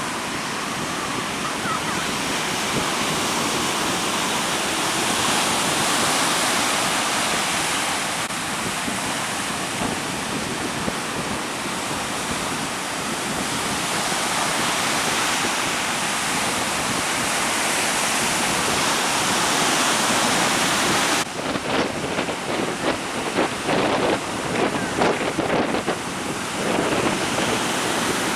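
Heavy surf and strong wind: a loud, steady rush of breaking waves. About three-quarters of the way through, the sound turns choppy with irregular buffeting thumps.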